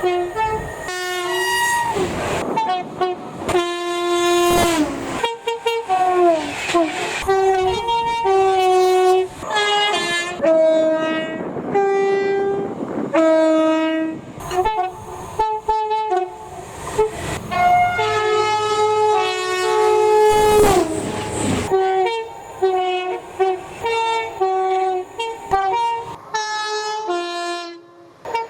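Two-tone train horns sounded over and over, in short and longer blasts that alternate between a low note and a high note. A few blasts drop in pitch as the train speeds past.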